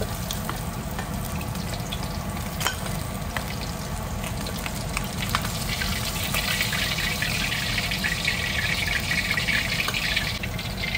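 Puput fish frying in hot oil in a pan: a continuous sizzle with scattered crackles and pops. The sizzle grows louder about halfway through.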